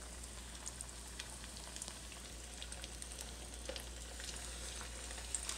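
Cornstarch-coated striped bass steaks deep-frying in hot oil in a wok: a steady sizzle with scattered crackles and pops as pieces are lowered into the oil.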